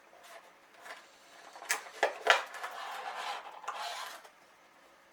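A HeroClix booster pack being opened by hand: a few sharp plastic clicks and snaps about two seconds in, then about two seconds of rustling packaging as the figures are pulled out.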